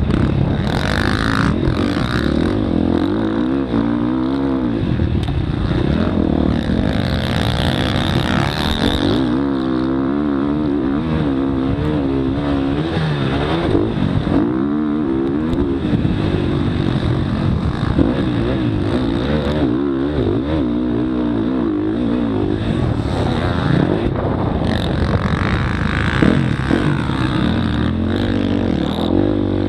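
Motocross bike engine heard from a camera mounted on the bike, revving up and falling back over and over as the rider works through the gears on the track.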